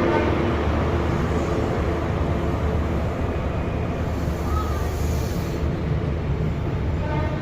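GWR Class 43 HST power car's diesel engine running, a steady low rumble under a wide hiss of train noise.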